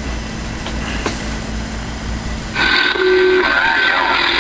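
Steady electrical hum, then about two and a half seconds in the CB radio's receive audio comes on suddenly: loud static hiss from its speaker with short steady whistling tones in it.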